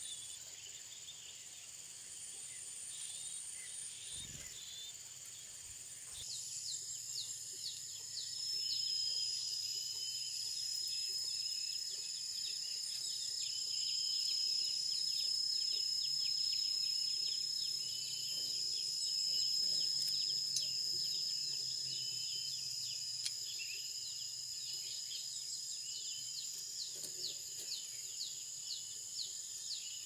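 Steady, high-pitched insect drone with many short, fast, high chirps over it. The mix changes abruptly about six seconds in, to a new steady tone and denser chirping.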